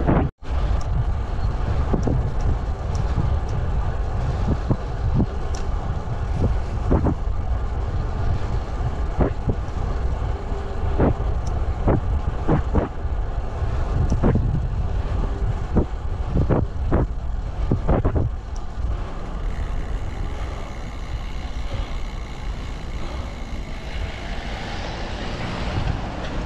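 Wind rushing over the microphone and road noise from a road bike on the move: a steady low rumble with many short, sharp knocks.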